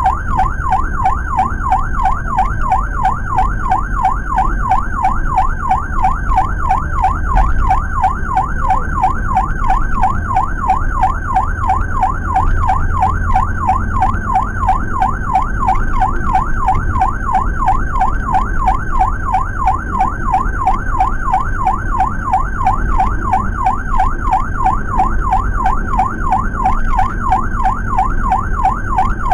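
Ambulance siren in a fast, steady rising-and-falling warble, heard from inside the cab of the Suzuki APV ambulance over the van's engine and road noise.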